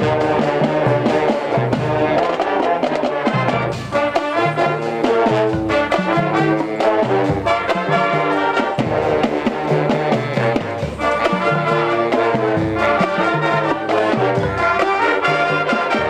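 Marching band playing a parade tune, led by trumpets and trombones over a regularly repeating bass line.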